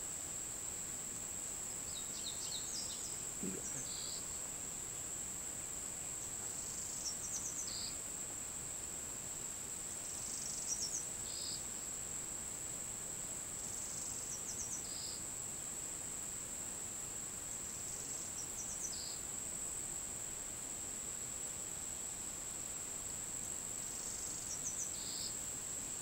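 Steady high-pitched drone of insects, with a bird's short alarm calls repeating about every four seconds, each a quick run of notes followed by a single note: small birds scolding a snake in a tree.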